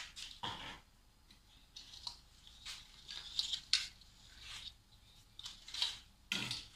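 Irregular light clicks and clinks of ice cubes shifting in a drinks cup while a milk drink is being made.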